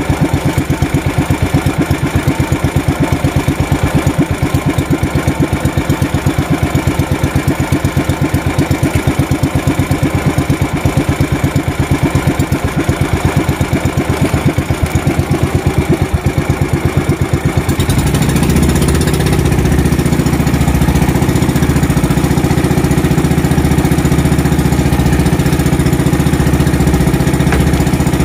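Small single-cylinder boat engine idling with an even pulsing beat, then revved up about eighteen seconds in to a higher, smoother steady run.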